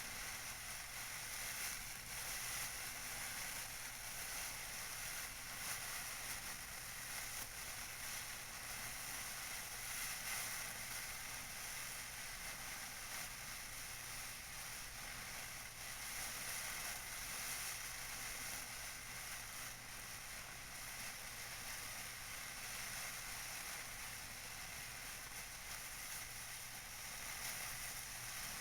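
Tissue paper being crinkled and rustled by hand: a continuous, soft, crackly rustle with no pauses.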